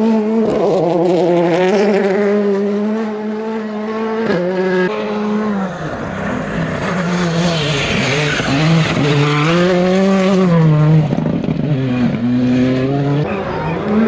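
R5-class rally cars such as the Ford Fiesta R5, their turbocharged 1.6-litre four-cylinder engines revving hard and dropping with each gear change as they pass at speed. About eight seconds in, gravel hisses and sprays from the tyres on a loose-surface stretch.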